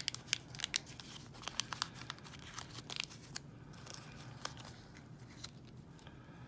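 Small clicks and rustling from hands sorting through thin padlock shims, dense for the first three seconds or so, then sparser.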